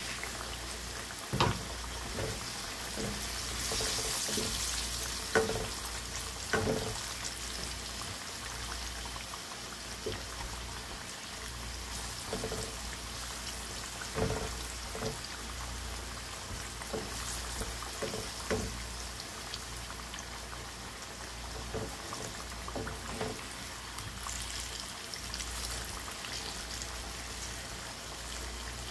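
Sweet potato slices deep-frying in hot oil in a pot, a steady sizzle, with a few sharp knocks of a wooden spatula against the pot as the slices are stirred and turned.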